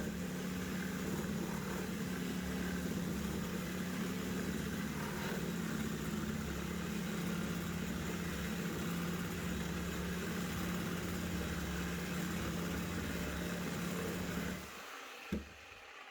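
OZITO 18V cordless reciprocating saw running steadily as it cuts through old 3x2 timber. The motor stops about a second and a half before the end, followed by a single knock.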